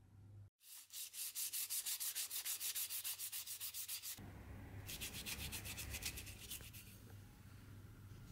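Fine P320-grit sandpaper rubbed by hand along a carved wooden sword grip: rapid back-and-forth rasping strokes, several a second. There is a brief pause a little past the middle, then more strokes that die away near the end.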